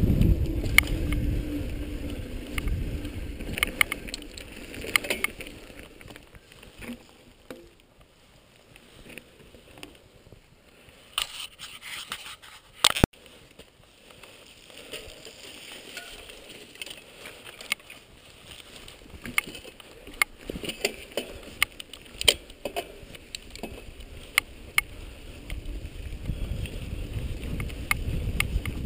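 Wind rumbling on a moving action camera's microphone, with scattered clicks and rattles of the camera mount. The rumble eases off for a while in the middle, and a sharp knock about halfway through comes as a hand reaches to the camera.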